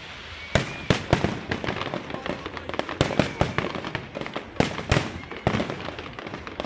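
Aerial fireworks display going off: a rapid, irregular string of sharp bangs and crackles, with several louder booms about half a second in, around three seconds and just before five seconds.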